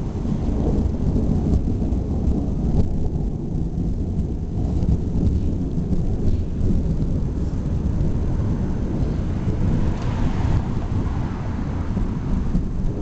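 Thunder rumbling low and steady from an overhead thunderstorm, with a brief lighter hiss about ten seconds in.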